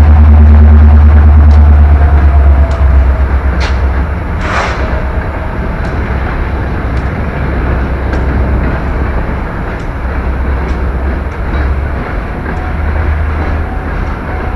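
CSX freight train rolling past at close range: steel wheels clacking over rail joints under a steady roar. A heavy low rumble eases off about two and a half seconds in, and there is one louder bang about four and a half seconds in.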